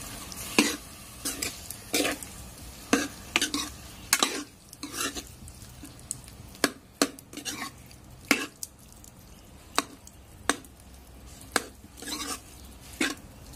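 A steel ladle stirs and scrapes boiled potato pieces through spiced oil in a metal pan. It knocks against the pan at irregular intervals over a faint sizzle of frying.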